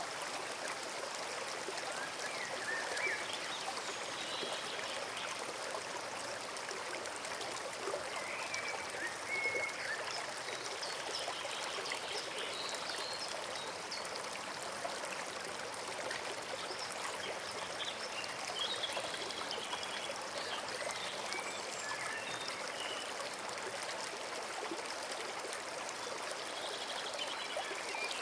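Forest brook babbling steadily over stones, with faint, scattered short bird chirps above the water.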